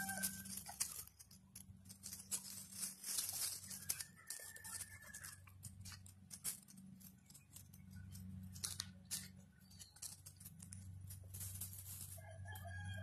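Dry leaf litter and twigs crackling and rustling under hound puppies' paws and footsteps as they scamper and wrestle, with a steady low hum underneath. A rooster crows near the end.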